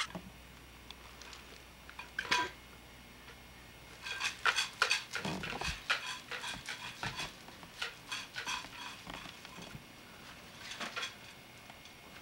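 Scattered light knocks and clatter of small plastic objects being handled by a toddler, a plastic cup among them. There is one sharp knock about two seconds in, then busy clusters from about four seconds in to nine seconds and another near eleven seconds.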